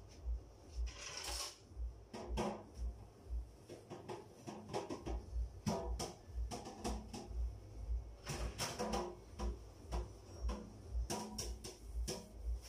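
A pot of sinigang soup boiling vigorously on a gas stove: irregular bubbling, popping and crackling over a steady hiss. Underneath runs an even low thud about twice a second.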